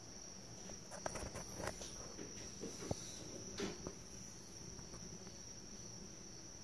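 Crickets trilling steadily at a high pitch. A few faint clicks and rustles come from the phone being handled close to the skin.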